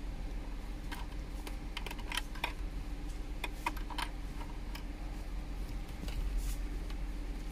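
A scatter of light, sharp plastic clicks and taps as a USB cable is handled and plugged into a car armrest's front USB port. Most fall in the first half, over a steady low hum.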